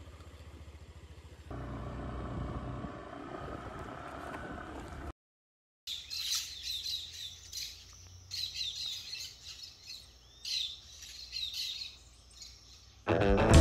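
Honda PCX scooter engine running as it rides off, its pitch rising slowly, cutting off after about five seconds. After a short silence, birds chirping and calling in scattered bursts.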